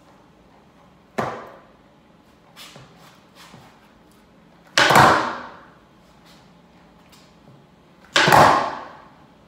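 Skateboard being popped and landing on a concrete garage floor during ollie attempts. There is one sharp clack about a second in, a few light taps, and then two loud slams about five and eight seconds in, each trailing off over about a second.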